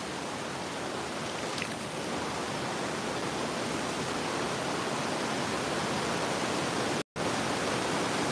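Steady rushing of a river running high after a flood: an even wash of water noise with no separate splashes standing out. It cuts out for an instant about seven seconds in.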